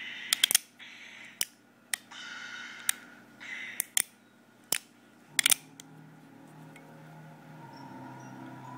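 A series of about ten sharp mechanical clicks, some in quick pairs or triplets, with short rasping sounds between them. Faint steady tones come in over the second half.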